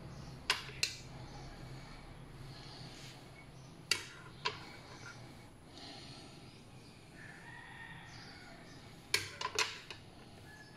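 Short sharp clicks and knocks of tin cans and a metal can opener being handled and set down on a countertop: two near the start, two about four seconds in, and a quick run of four near the end.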